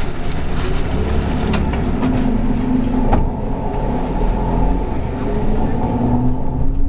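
City bus engine running as the bus drives, heard from inside the passenger cabin, its pitch rising gently twice as it speeds up, with cabin rattles and one sharp knock about three seconds in.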